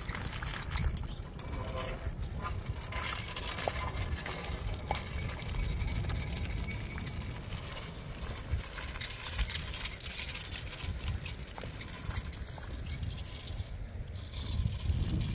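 Stone roof roller being dragged across a flat packed-earth roof, rolling to compact the mud surface: a continuous uneven low rumble with gritty crunching of grit under the stone.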